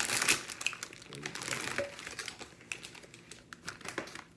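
Plastic snack packaging crinkling as it is handled and opened: a loud burst of crackling at first, then scattered crackles.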